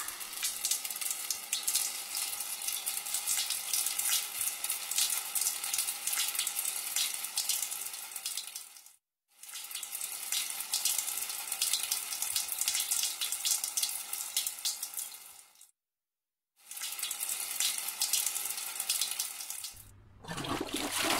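Water running and splashing steadily, with many small droplet ticks. It cuts off abruptly twice, about nine and sixteen seconds in, each time for under a second, and dips again near the end.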